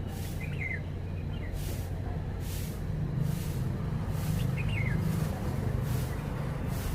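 Steady low rumble, with two brief faint chirps from a red-whiskered bulbul, about half a second in and again after about four and a half seconds, and a faint high hiss pulsing roughly once a second.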